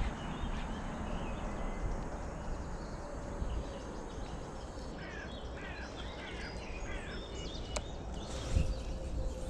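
Steady wind rumble outdoors with small birds chirping, a run of short falling chirps partway through; a sharp click and a dull thump near the end.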